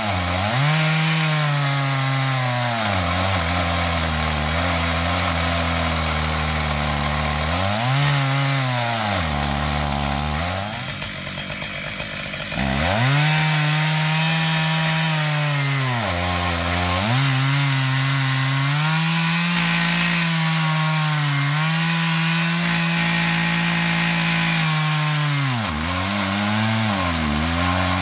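Stihl MS880 chainsaw in a chainsaw mill, ripping a slab lengthwise through a wide willow log under heavy load. The engine pitch sags and recovers several times as it bogs in the cut, with a short break in the engine note about eleven seconds in.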